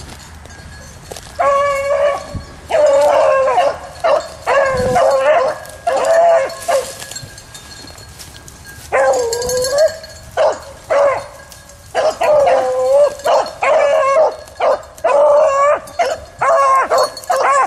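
Rabbit-hunting hounds baying on a rabbit's trail: repeated drawn-out bays, sometimes overlapping, with a lull of about two seconds near the middle.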